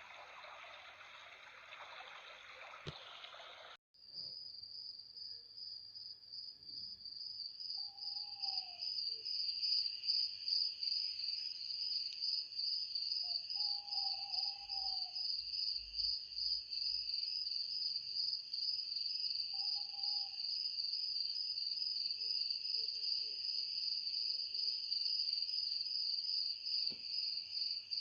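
A stream trickling for the first few seconds, cut off suddenly, then crickets chirring in a steady, high, pulsing trill that grows louder and holds. Three short lower calls break in over the crickets.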